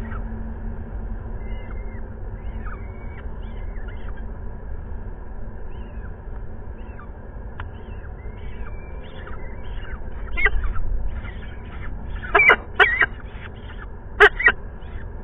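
Peregrine falcon nest sounds during a feeding: short, thin, high begging cheeps repeating throughout, with louder, harsher calls about ten seconds in and then in two quick pairs near the end, over a steady low rumble.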